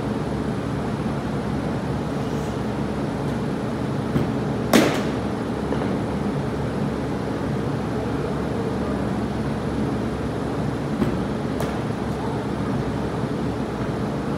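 Steady motor hum from machinery running in an indoor batting cage, with a few sharp knocks on top. The loudest knock, with a short ring, comes about five seconds in, and lighter ones come near the end.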